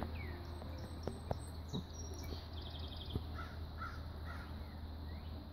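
Crows cawing, three calls in quick succession about three seconds in, with a few light clicks and a faint high chirping of a small bird before them.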